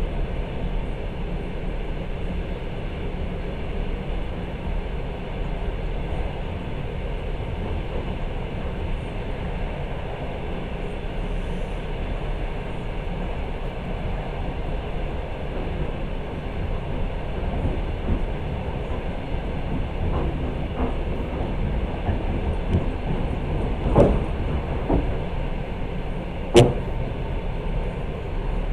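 Long-distance passenger train running at speed, heard from inside the carriage: a steady rumble of wheels on rails. Two sharp knocks stand out near the end.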